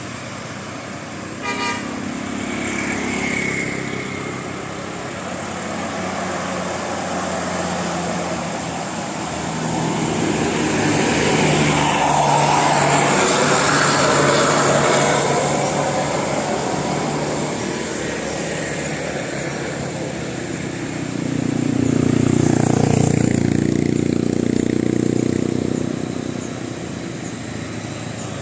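Buses driving past up a steep hill one after another, their engines working hard, with a horn sounding. Two passes swell and fade, the second one loudest.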